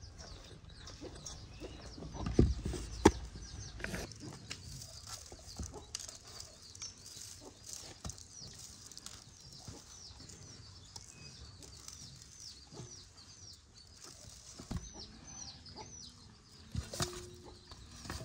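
Birds chirping over and over, short high calls repeating throughout. A few sharp knocks and clatters from handling cooking things, the loudest about three seconds in.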